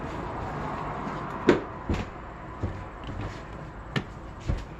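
Plastic Lego pieces clicking and knocking on a wooden tabletop as they are fitted onto a Lego Super Mario course: about five sharp clicks spread out, the first, about one and a half seconds in, the loudest.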